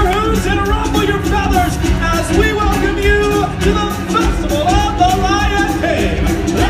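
Stage-show music played loud through the theatre: voices singing over a steady drum beat.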